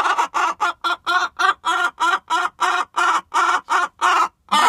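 Hen squawking in a rapid, loud run of short calls, about four to five a second, with a brief pause near the end. She is a hen making a fuss because the nest box she wants to lay in is already taken.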